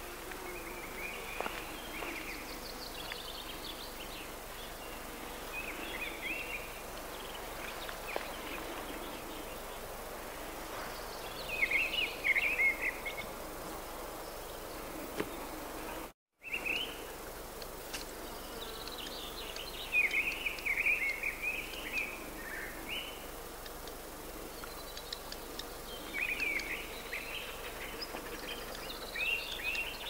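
Wild songbirds singing short, warbling phrases again and again over a steady outdoor background hiss. The sound drops out briefly about halfway through.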